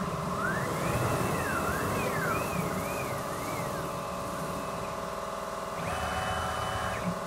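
NEMA 34 stepper motors of a large homebuilt CNC gantry mill whining through several quick axis moves. On each move the pitch rises as the motors speed up, holds, then falls as they slow. Another longer move comes near the end, all over a steady machine hum.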